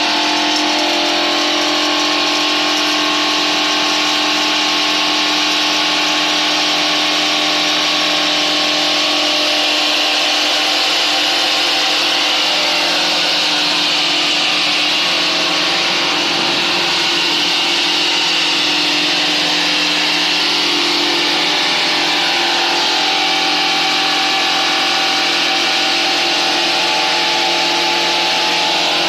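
Stainless-steel hammer mill pulverizer running steadily while grinding coffee beans to powder: a constant motor hum with a strong high hiss from the beans being milled.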